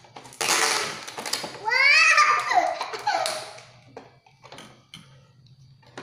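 A young child laughs and squeals, starting breathy, then turning into loud, high-pitched sounds that slide up and down, about two seconds in. A few faint light clicks follow.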